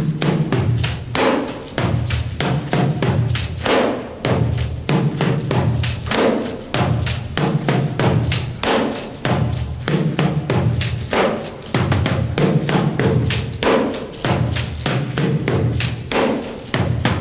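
Headed tambourine played like a hand drum in a steady groove: deep thumps from the struck head, pitch bent by the other hand pressing the head, under the jingles ringing in broken eighth notes.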